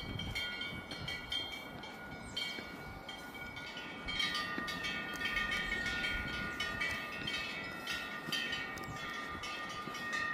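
Temple wind bells hanging from the eaves, jangling in strong wind: repeated strikes with several overlapping high tones ringing on, over a low rush of wind. The strikes come thicker about four seconds in.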